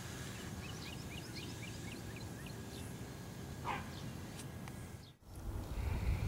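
Birds chirping: a quick string of short, high rising chirps for the first few seconds, then one louder falling call. The sound drops out briefly about five seconds in, and then low wind rumble on the microphone comes in.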